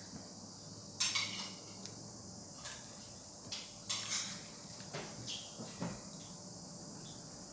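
Scattered light clinks and knocks, the loudest about a second in and a cluster around the middle, over a faint steady high hiss.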